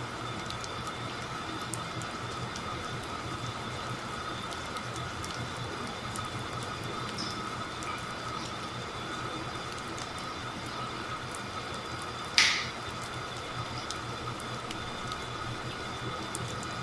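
Steady background hum and hiss, with one short, sharp crack about twelve seconds in.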